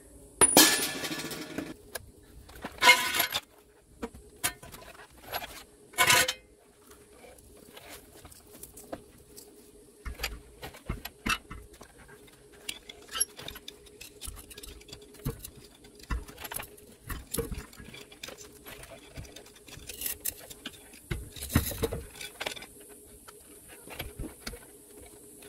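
Scattered metal clicks and clanks of hands and tools working at a motorhome's rear dual-wheel hub, with a few louder clatters in the first six seconds and again near the end.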